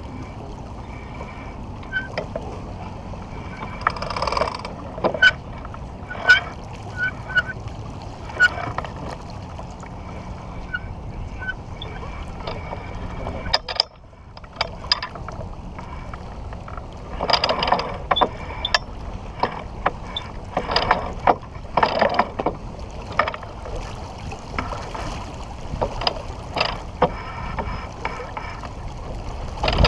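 Sailboat under way: a steady rush of wind and water past the hull, with many scattered clicks, knocks and brief squeaks from the rigging and deck gear.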